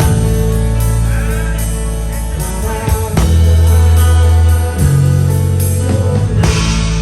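Live rock band playing a song: deep bass notes held a second or more at a time, guitar, and drum hits every second or so, with singing.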